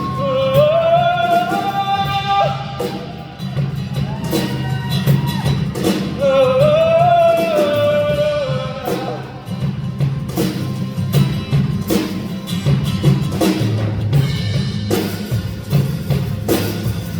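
Live pop-rock band music with a voice singing long, gliding held notes over drums and guitar for about the first nine seconds, after which the band plays on with steady drum hits.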